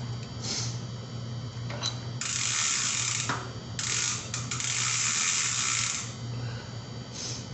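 Bicycle freewheel ratchet clicking fast as the cranks are turned backwards by hand. It comes in two long runs of about two seconds each, with a few short bursts before and after.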